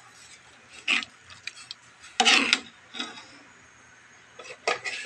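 Ladle scraping and knocking against an aluminium pot while stirring mung bean soup, in irregular strokes, the longest and loudest about two seconds in.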